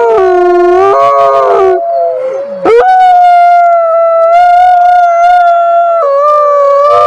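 Wolf howling: long, steady drawn-out howls, a short break about two and a half seconds in, then one long held howl.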